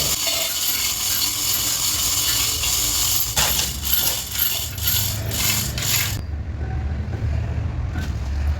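A run of sharp metallic clicks and clinks over a steady low hum and a high hiss. The hiss stops abruptly about six seconds in.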